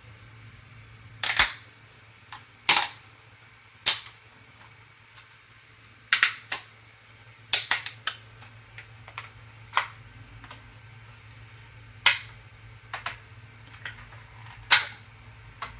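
3D-printed PLA pieces being snapped off their print rafts by hand: a series of sharp plastic snaps and clicks at irregular intervals, some in quick clusters of two or three.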